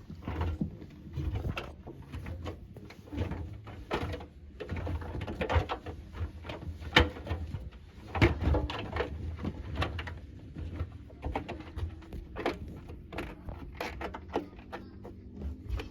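LG washing machine drum being turned by hand: irregular knocks and clicks over a low rumble.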